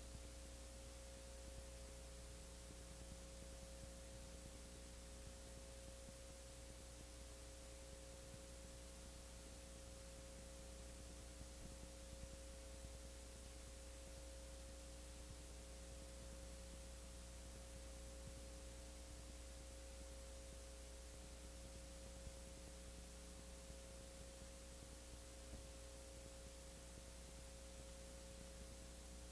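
Near silence: a faint steady hum with a few fixed tones and an even hiss, unchanging throughout.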